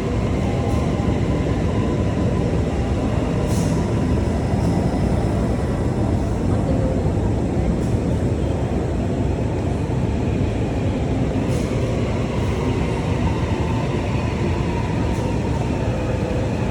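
Indonesian LRT light-rail train running, a steady rumble with a few sharp clicks.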